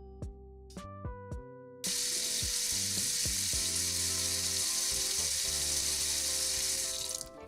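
Frying sizzle, steady and loud, starting about two seconds in and cutting off suddenly near the end, over soft background music; a few light clicks come before it.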